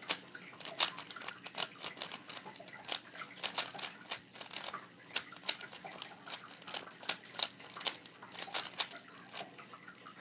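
Plastic 3x3 speed cube being twisted quickly by hand: irregular clicking and clacking of the layers as they turn, often several turns a second in quick runs.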